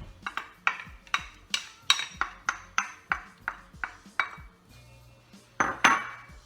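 Metal spoon clinking against a cooking pan, about four quick strikes a second, while onion is stirred into oil, then one longer, louder scrape near the end.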